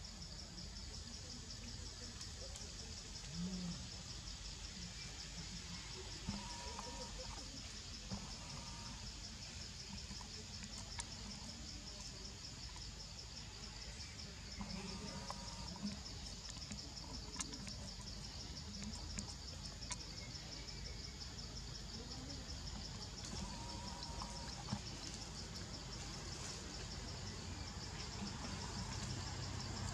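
Steady insect chorus, a continuous high, rapidly pulsing buzz, with a few faint clicks and brief short calls over it.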